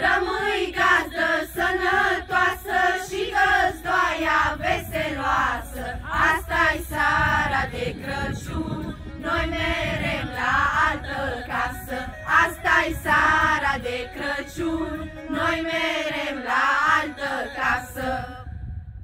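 A group of girls singing a Romanian Christmas carol (colind) together in chorus, with long held notes. The singing stops shortly before the end.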